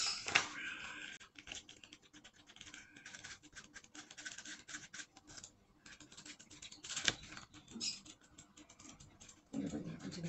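Pages of a glossy paper sales catalogue being leafed through: a run of soft, uneven paper rustles and flicks, with a louder rustle near the end.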